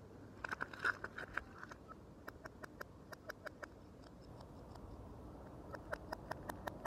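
Kitchen knife blade sawing and scraping at the rubber skin of a frozen water balloon: a string of light, irregular ticks and scratches, thickest about half a second to a second and a half in.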